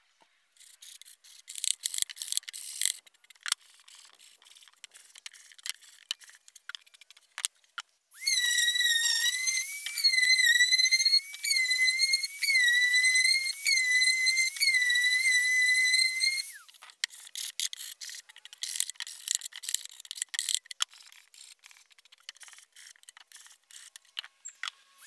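Random orbit sander running on plywood with a high-pitched whine that wavers slightly in pitch as it is worked, starting about 8 seconds in and stopping about 16 seconds in. Before and after it, scattered clicks and light knocks of the wooden box being handled.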